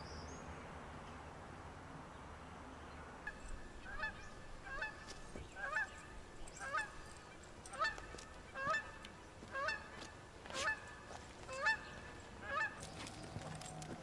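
A goose honking over and over, about a dozen short, hooked calls roughly one a second, starting about three seconds in and stopping near the end.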